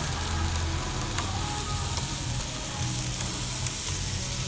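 Steady sizzling of food frying on a hot grill, with a low hum underneath and a few light clicks of chopsticks against a sauce dish.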